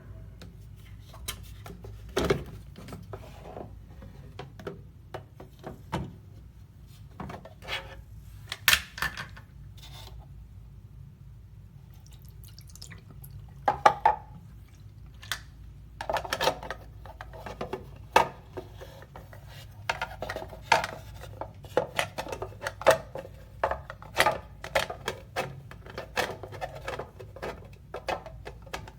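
Irregular clicks and light clatter of hard objects being handled, getting busier about halfway through, over a steady low hum.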